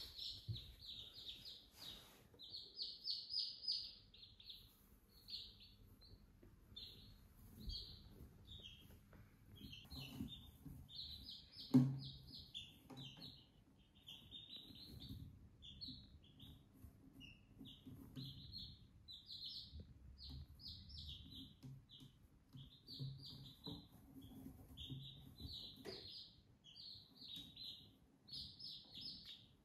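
Several chicks peeping, short high calls in quick runs that go on nearly without pause. A single sharp knock about twelve seconds in, with a few fainter knocks elsewhere.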